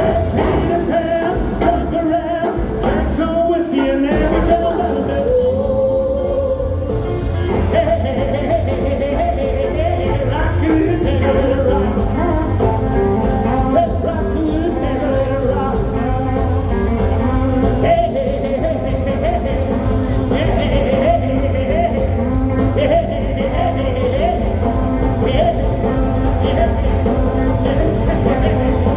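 Rock and roll band playing live, with a singer, at a steady loud level.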